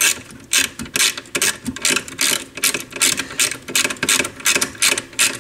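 Small socket ratchet clicking in quick repeated strokes, about two to three a second, as it backs out a screw holding the VU meter in.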